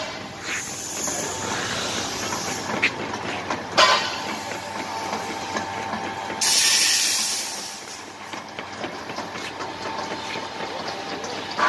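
Electric gear-motor-driven inclined belt conveyor running, with a steady rattling rumble and a faint motor whine, and a sharp knock about four seconds in. A loud burst of hiss rises over it about six and a half seconds in and lasts about a second and a half.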